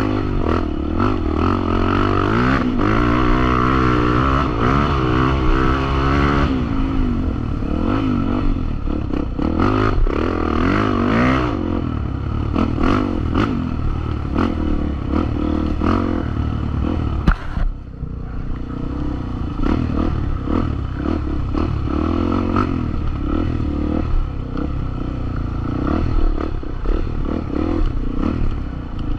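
Off-road trail motorcycle engine running hard, its pitch rising and falling over and over as the throttle is worked, with many small knocks throughout. A sharp knock comes about two-thirds of the way in, and the engine drops off briefly after it.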